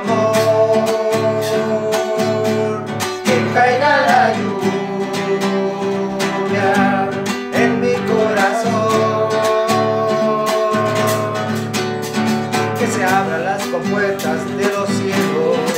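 Acoustic guitar strummed in a steady rhythm with sustained chords, and a man's voice coming in briefly a few times without clear words.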